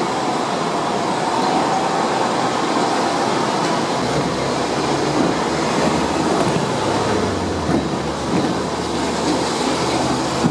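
Hong Kong double-decker electric tram running along its street track: steady rolling noise of steel wheels on the rails, with a low hum that grows stronger midway.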